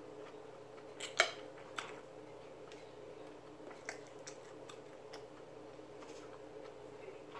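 Quiet eating sounds at a table: a spoon and fork clicking softly now and then against a bowl and plate, with one sharper click about a second in, over a faint steady hum.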